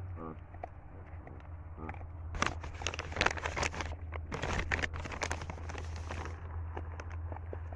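Dense crackling and crinkling from about two and a half seconds in until about six seconds, over a steady low hum.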